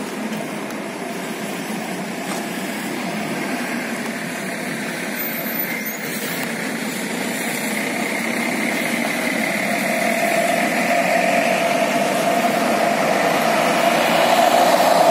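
Intercity coach's diesel engine running as the bus pulls away and drives past, growing steadily louder toward the end.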